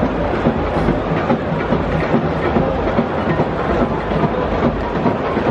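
Large stadium crowd making a loud, steady din, with a heavy low rumble and scattered sharper sounds through it.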